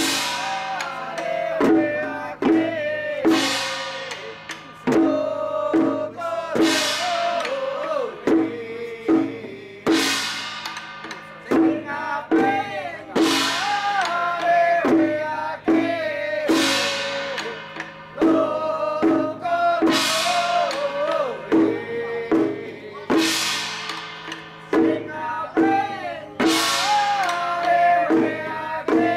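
Chinese ritual percussion: a drum beating steadily, with a cymbal crash ringing out about every three seconds, over a wavering melody.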